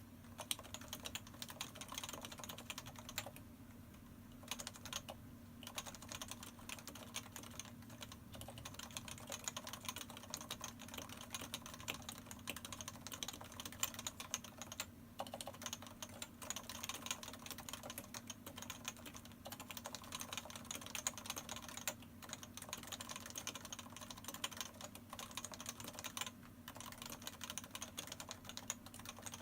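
Steady, fast typing on a Topre Realforce 104U keyboard, with 45 g uniform-weight electrostatic capacitive (Topre) switches and dye-sublimated PBT keycaps. Keystrokes come in a dense, irregular stream, with a few short pauses about four seconds in and again near the end.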